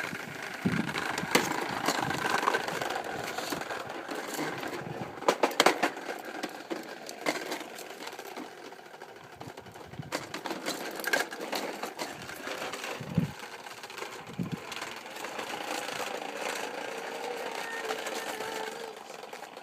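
Child's toy lawn mower rattling and whirring as it is pushed along, with scattered clicks and knocks.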